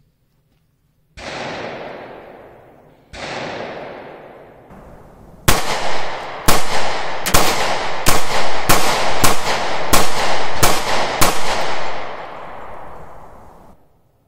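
.45 ACP pistol firing about a dozen shots. Two come roughly two seconds apart, then about ten follow in a quicker string, roughly one every half second to second. Each shot leaves a long echoing decay. The string stops before the magazine is empty because the slide locked back early, which the shooter puts down to his thumb riding the slide lock.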